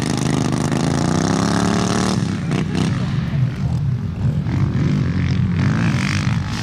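Small racing engines running hard as vehicles pass on the course. A strong engine tone falls and rises in pitch over the first two seconds, then gives way to a rougher mix of engines.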